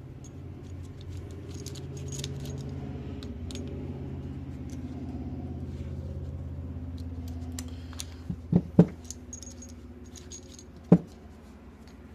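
Small metal parts clinking as a brake caliper is handled and worked on, over a steady low hum; a few sharp metal knocks come about eight seconds in and once more near the end.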